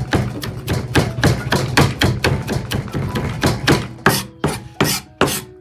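Chinese cleaver rapidly chopping and mincing on a plastic cutting board, about five quick knocks a second. About four seconds in it slows to four separate, heavier chops.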